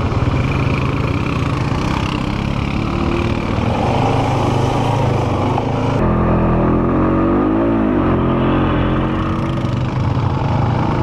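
ATV engine running steadily under way, with the revs dipping and climbing again about seven or eight seconds in.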